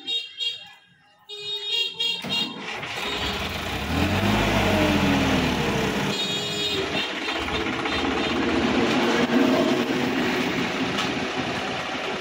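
Music for the first couple of seconds, then a Sonalika DI-50 RX tractor's diesel engine running hard under load as the tractor climbs out of a flooded paddy field, its revs rising and falling.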